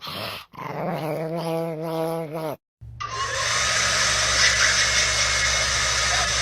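A small dog's drawn-out, wavering growling vocalisation, then a short break. After that a steady whooshing mechanical noise with a low hum starts and runs on.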